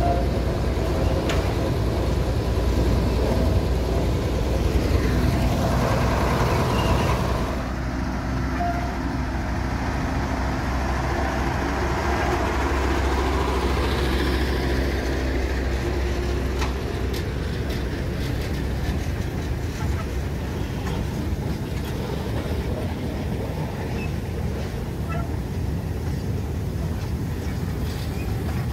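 Narrow-gauge diesel locomotive's engine running steadily with a low hum, dropping a little in level about seven and a half seconds in.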